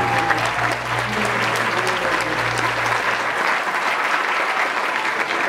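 Audience applauding, a dense patter of many hands, over the dance music, whose low notes stop about three seconds in while the clapping goes on.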